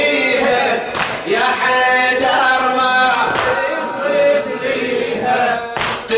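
Group of men chanting a Shia latmiyya mourning elegy in unison, led by a reciter at a microphone. The chant is punctuated by sharp slaps of hands striking chests, loudest about one, three and a half, and six seconds in.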